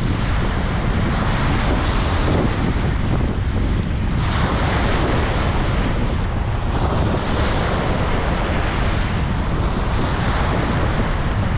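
Ocean surf washing onto a beach, the hiss of breaking waves swelling about four seconds in and again about seven seconds in, over a steady low rumble of wind buffeting the microphone.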